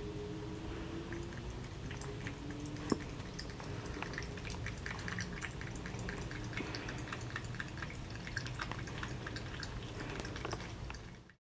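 A thin stream of tap water trickling into a sink while a Persian cat laps at it, giving many small, irregular wet clicks and drips. The sound cuts off abruptly just before the end.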